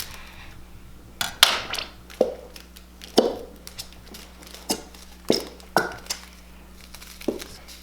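Irregular clinks and knocks of a utensil and containers against a bowl and table while slime is being mixed, about a dozen sharp taps spread unevenly, some with a brief ring.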